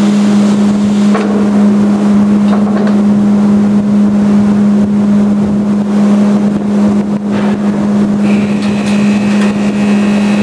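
Loud, steady machine hum with a constant low drone; a higher steady whine joins about eight seconds in.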